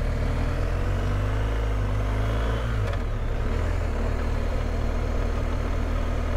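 Motorcycle engine under way with road and wind noise, heard from the rider's seat. The engine note climbs for about three seconds, breaks off, then runs steady.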